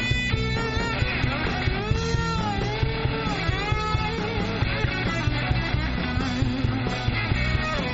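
Live blues-rock band playing an instrumental passage with no vocals: a lead line of bent notes that arch up and down over a steady bass and drum groove.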